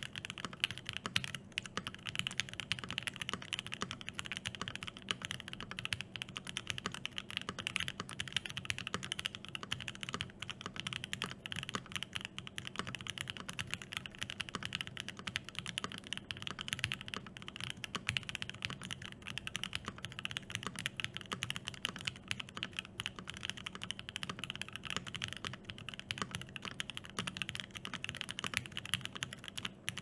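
Continuous typing on an Obliterated75 SE mechanical keyboard with lubed Alpaca linear switches, an FR4 plate and GMK Hyperfuse ABS keycaps: a steady, dense stream of key clicks and bottom-outs.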